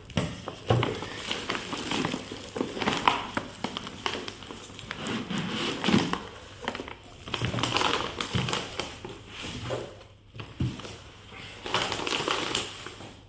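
Packing material crinkling and crumpling as it is pulled off and handled around a large tub of whey protein during unboxing, in irregular rustling spells with a short pause about ten seconds in.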